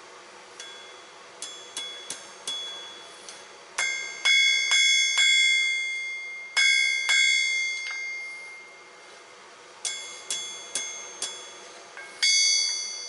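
Hand hammer striking hot steel on a blacksmith's anvil while forging a knife blade from an old file, each blow ringing on with a long bell-like tone. Lighter taps come first, then clusters of loud ringing strikes, a pause of a couple of seconds, and another run of blows with a loud one near the end.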